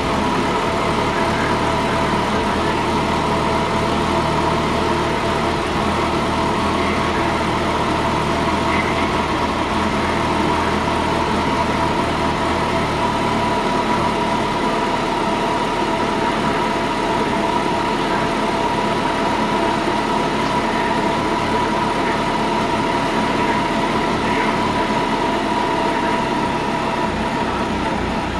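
2008 Kawasaki Concours's inline-four engine idling steadily, with no revving.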